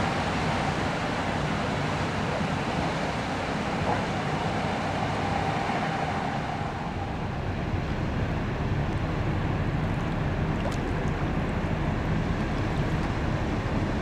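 Steady rushing noise with a thin, even whine. Partway through it gives way to the low, steady hum of a tugboat's diesel engine as the tug tows the hull, with wind on the microphone.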